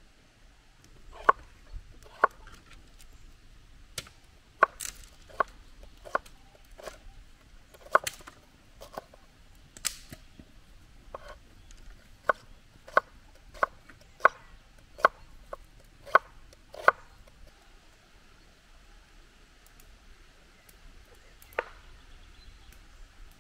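Knife chopping on a cutting board: a run of sharp single strokes, roughly one a second, that stops about 17 seconds in, followed by one more stroke a few seconds later.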